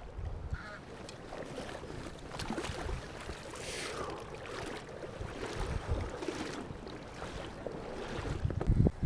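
Steady rush of river water with wind on the microphone.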